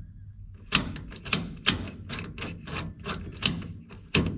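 A quick run of sharp metal clicks, about three a second, from working a new headlight switch and its bezel in a 1955 Chevy dash, over a low steady hum.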